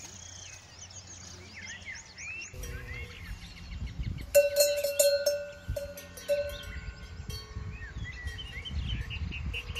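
Birds chirping faintly at first. A couple of seconds in, a low rumble comes in, and soon after a cow's neck bell clanks and rings in a run of loud strikes, then keeps clanging more lightly as the cow moves.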